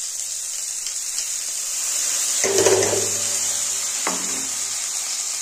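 Split moong dal frying in hot oil in a steel kadai: a steady sizzle, briefly louder about two and a half seconds in.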